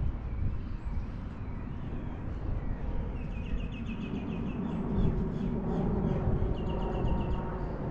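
A bird calling in quick runs of short repeated chirps, twice: about three seconds in and again near the end. Underneath is a steady low rumble of wind and movement on the microphone.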